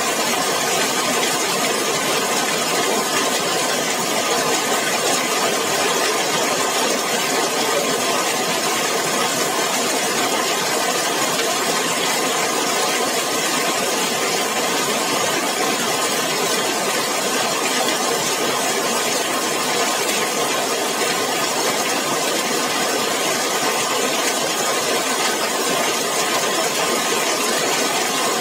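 Heavy rain falling on a zinc sheet roof: a dense, even patter that holds steady throughout.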